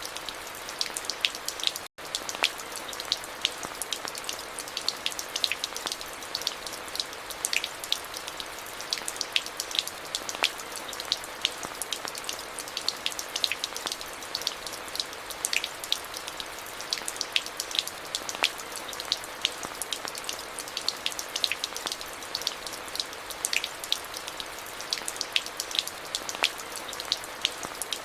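Steady rain falling, many separate drops striking close by over an even hiss. The sound cuts out for an instant about two seconds in.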